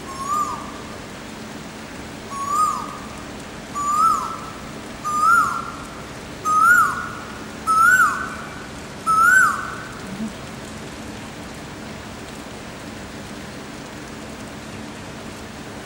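Asian koel giving its repeated two-note "ko-el" call, the male's call: seven calls about a second and a half apart, each a little higher and louder than the last, then stopping about ten seconds in. A steady hiss runs underneath.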